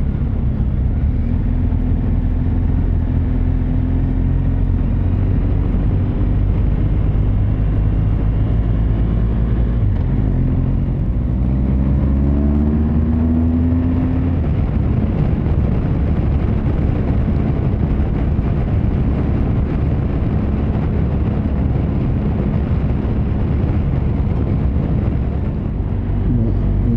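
Road vehicle on the move: a steady low engine hum and road rumble, with the engine note climbing for a few seconds about halfway through as it accelerates.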